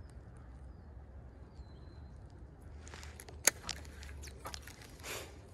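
Wind rumbling on the microphone, with a few faint bird chirps. From about three seconds in, a fishing rod and baitcasting reel are handled, giving a run of clicks and rustles, one sharp loud click among them.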